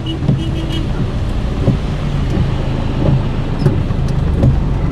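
Car driving on a rain-soaked road, heard from inside the cabin: a steady low engine hum under an even hiss of tyres on wet tarmac and rain. A brief steady tone sounds near the start.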